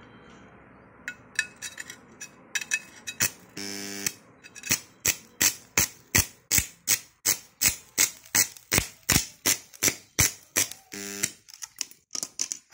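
Arc of a homemade AC pulse stick welder on a steel plate, crackling in regular pulses about three times a second, with a short electric buzz about four seconds in and again near the end.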